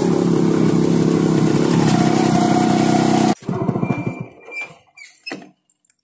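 Motorcycle engine running steadily, then stopping abruptly about three seconds in; a few faint clicks and a brief high squeak follow.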